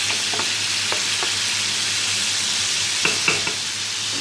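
Paella broth with chicken, pork ribs and green beans hissing and bubbling in a metal paella pan while a wooden spoon stirs it. The spoon knocks against the pan a few times; the loudest knock comes about three seconds in.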